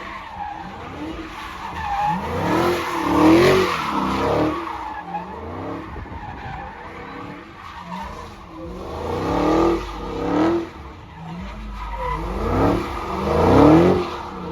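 Dodge Hellcat's supercharged V8 revving hard in repeated rising and falling surges, with tires skidding and squealing; the loudest surges come about three seconds in and again near the end.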